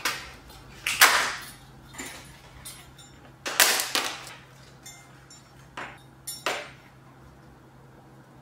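Plastic packaging crinkling and crackling as tortillas are pulled from their plastic bag and a clear plastic tray is opened, in a series of sharp rustles, loudest about a second in and again at three and a half seconds.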